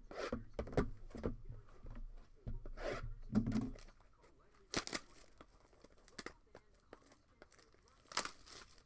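Plastic wrapping being torn and crinkled as a sealed trading-card box or pack is opened, with sharp rips about five and eight seconds in.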